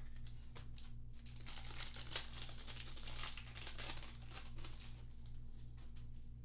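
A foil trading-card pack being torn open, its wrapper crinkling and crackling for about three seconds.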